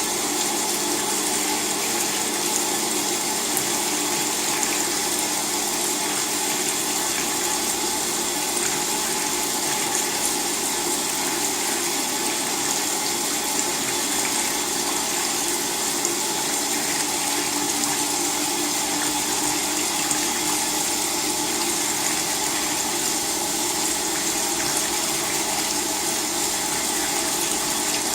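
LG WT-R852 direct-drive washing machine with water rushing steadily through it, an even hiss with a faint steady hum.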